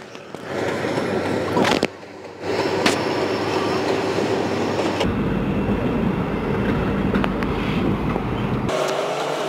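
Union Pacific diesel locomotives moving through a rail yard: a steady engine drone with wheel and rail noise. A deeper rumble sets in about halfway and stops shortly before the end.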